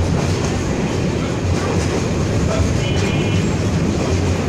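Container freight train's loaded wagons rolling past: a steady, deep rumble of steel wheels running on the rails.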